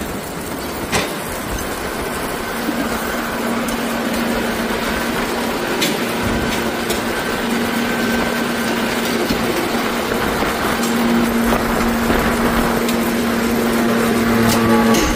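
Forging press and its machinery running with a steady hum and a held tone that comes and goes, growing slightly louder toward the end, with a couple of sharp metal clinks near the start.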